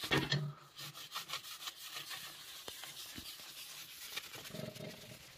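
A damp paper napkin rubbing over the sooty glass of a cast-iron wood stove's door in quick repeated strokes, wiping off the ash.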